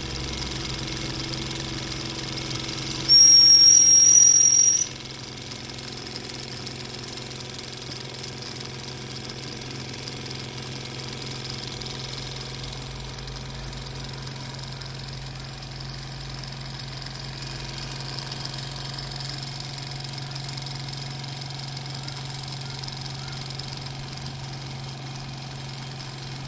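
Toy live-steam roller's steam whistle blown once, a shrill steady blast of just under two seconds about three seconds in, rising slightly in pitch at the end. The model steam engines run steadily underneath.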